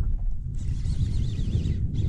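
Wind rumbling on the microphone, with a higher fluttering whir starting about half a second in.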